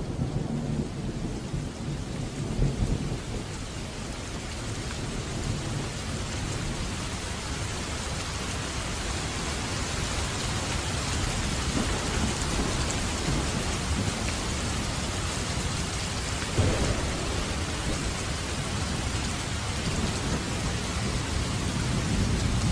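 Heavy rain falling steadily, with low rumbling thunder in the first few seconds and a sudden sharp clap about two-thirds of the way in.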